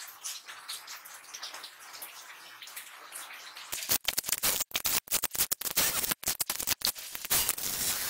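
Small scraping and handling sounds of a brass fitting being set in a steel bench vise. From about four seconds in, a cordless drill bores into the brass fitting, the bit cutting in short stop-start runs.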